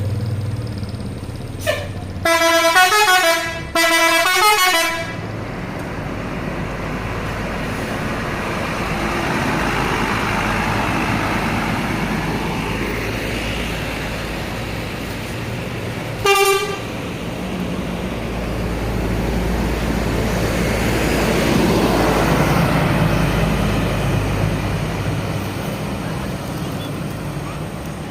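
Indonesian bus telolet musical horn sounding two loud multi-tone blasts about two seconds in, then one short toot about halfway through. Between the blasts a bus engine and traffic run steadily, and a low rumble swells and fades as a heavy vehicle passes.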